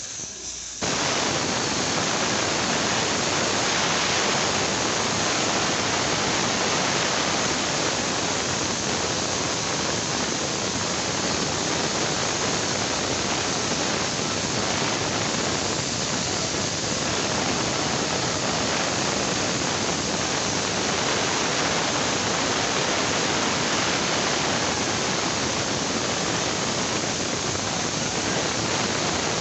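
A loud, steady hiss that switches on abruptly about a second in and holds without a break, with no pitch or rhythm in it.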